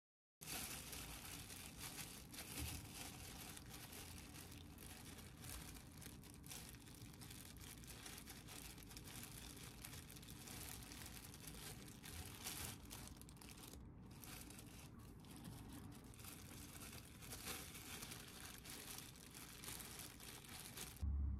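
Faint, continuous crinkling of thin disposable plastic gloves as gloved hands handle fried tofu pockets and press rice into them.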